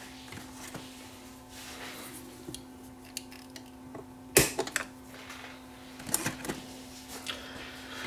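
Small metal and plastic turntable mechanism parts being handled and fitted by hand: scattered light clicks, with one sharp snap about four seconds in and a few more clicks a couple of seconds later, over a steady low hum.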